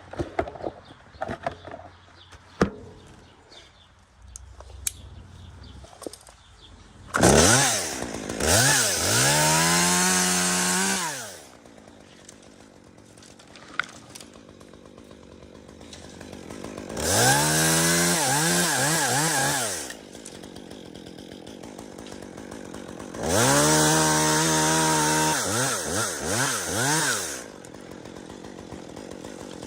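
Chainsaw revved up to full speed three times, each burst lasting about three to four seconds, and dropping back to a lower running speed in between. The first several seconds hold scattered knocks and clicks.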